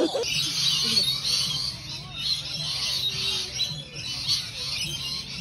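Rainbow lorikeets chattering and squawking continuously in a shrill, high-pitched flock din.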